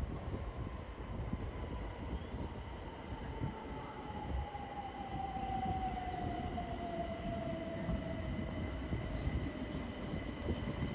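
c2c Class 357 Electrostar electric multiple unit pulling into a station as it slows to stop. A low rumble of wheels on rail sits under a whine that falls slowly in pitch as the train brakes.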